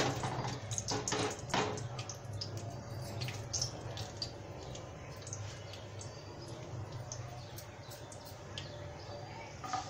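Mustard seeds crackling in hot oil in a kadai: scattered sharp pops over a faint sizzle, the first step of a tempering. The pops are most frequent in the first couple of seconds and grow sparser after.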